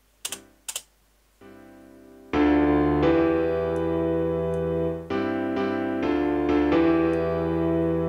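FL Keys piano plugin in FL Studio playing back a recorded chord pattern: a soft first chord whose note velocity has been turned down, then loud sustained chords changing every second or so. Two short clicks come just before the music starts.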